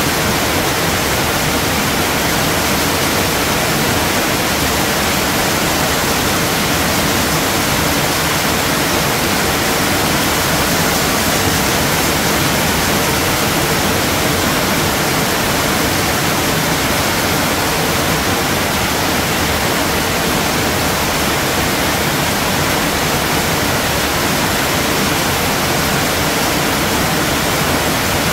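Heavy rain falling steadily, a dense even hiss that does not let up.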